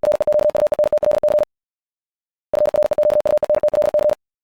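Morse code sent at 70 words per minute as a steady-pitched beep: two runs of rapid dits and dahs, each about a second and a half long, with a pause of about a second between.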